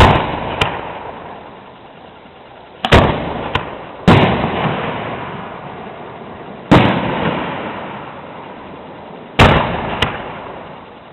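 Firework shells bursting overhead: five loud bangs a few seconds apart, each followed by a long rolling echo, with a few smaller cracks after some of them.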